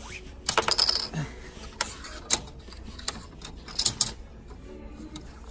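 Plastic Connect 4 discs clicking and clacking as they are picked from a bowl and dropped into the plastic grid. There is a quick cluster of clacks about half a second in, single clicks around two seconds, and another cluster near four seconds.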